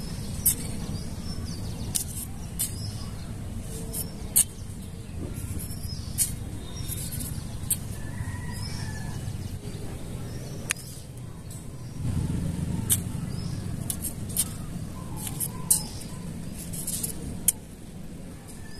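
A small motor hums steadily, with sharp clicks and ticks scattered through it. The hum grows louder about twelve seconds in, then drops back near the end.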